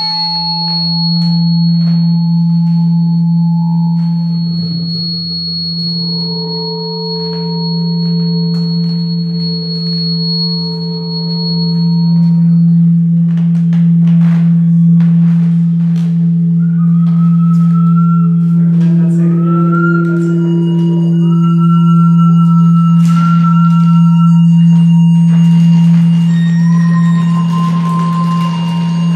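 Acoustic feedback from condenser microphones aimed at active loudspeakers: a loud, steady low tone held throughout, with higher pure ringing tones swelling in and dying away one after another, some of them wavering slightly. Scattered short clicks.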